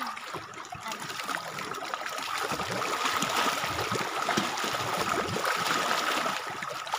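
Small forest stream trickling and gurgling over rocks, growing louder about two seconds in, with a thin steady high tone over it.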